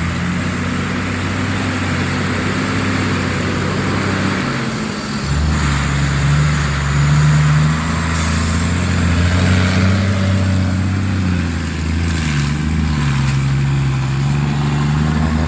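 Heavy diesel engine running, its revs rising and falling under load, with a brief easing off about five seconds in.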